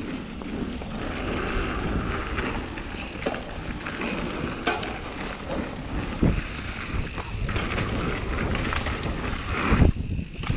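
Mountain bike rolling fast down a dirt trail strewn with dry leaves: wind rushing over the action camera's microphone and tyre noise, with a few sharp knocks and rattles from the bike over bumps, the loudest about six seconds in and again near the end.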